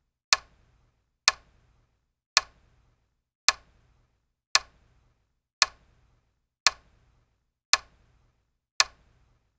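Countdown tick sound effect: a sharp, clock-like tick about once a second, nine ticks in all, with silence between them.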